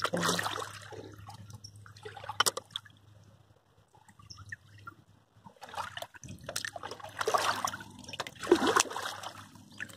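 Bare feet wading through shallow, muddy running water over gravel, with splashing and trickling. The splashing eases for a couple of seconds in the middle, then picks up again.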